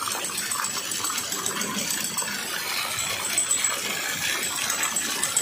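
Small model three-cylinder steam engine running fast: a rapid, continuous metallic clatter over a steady hiss.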